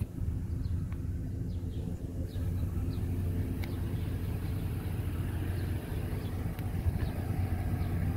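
Vehicle engine idling steadily: an even, low hum that holds without rising or falling.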